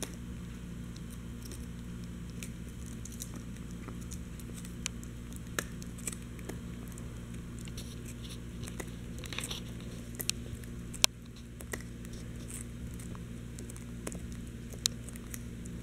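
Chihuahua puppy gnawing a knotted rawhide chew: irregular clicks and crunches of teeth on the hide, with one sharper crack about two-thirds of the way through, over a steady low hum.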